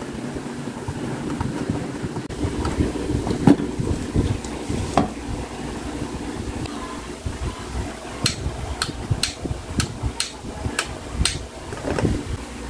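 Handling and screwing together a rice cooker's metal body and pot with a screwdriver: scattered knocks, then a run of about seven sharp clicks in the second half, over a steady background hiss.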